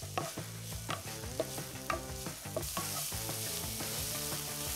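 Diced onions and carrots sizzling in hot vegetable oil in a large frying pan, stirred with a utensil that taps the pan now and then. The sizzle grows louder about two-thirds of the way in.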